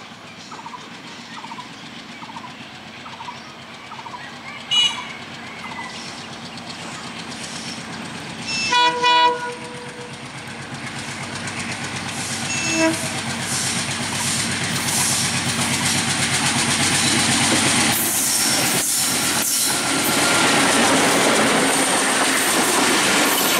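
ALCO WDM3A diesel-electric locomotive approaching and passing. It sounds its horn in short blasts about 5 s in, twice around 9 s and once near 13 s, while its engine grows steadily louder. It comes level about 18 s in, then the coaches roll past with the clickety-clack of wheels on rail joints.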